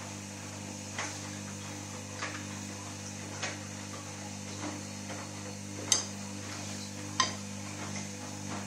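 Beko SMW 3508 TGK washing machine running a delicates wash: a steady motor hum, with a short knock or tap about every second and a bit as the drum turns, two louder ones late on.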